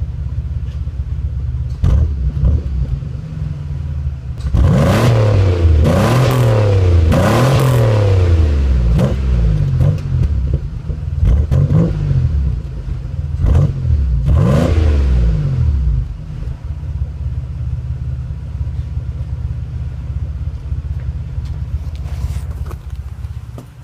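Buick car engine idling, then revved up and down several times in quick succession for about ten seconds before settling back to idle.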